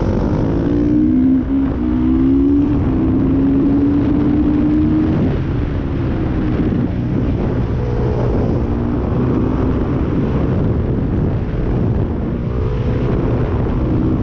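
Suzuki 450 supermoto's single-cylinder four-stroke engine at racing pace, its pitch rising and falling as it revs through the gears and drops off into corners, with wind rushing over the microphone.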